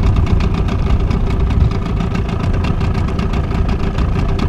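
Small outboard motor running steadily at low trolling speed, a constant hum with an even pulse.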